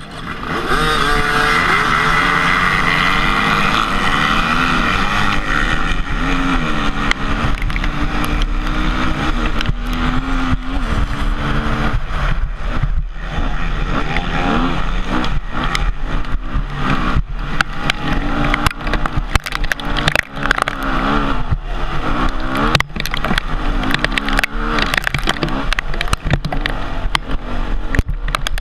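Dirt bike engines start up suddenly about half a second in at a dead-engine start and rev hard as the bikes pull away. The onboard bike then runs loud, its revs rising and falling through the gears over rough off-road ground, with many short knocks and clatters from the terrain.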